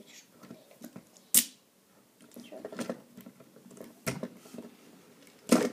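Plastic parts of a Transformers MechTech Voyager Megatron action figure being handled and transformed: three sharp clicks, the loudest about a second and a half in and again near the end, with soft plastic rattling between.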